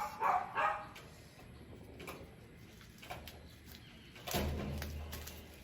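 Handling noise while unpacking products: a couple of faint clicks, then about four seconds in a second-long rustling scrape with a low thump.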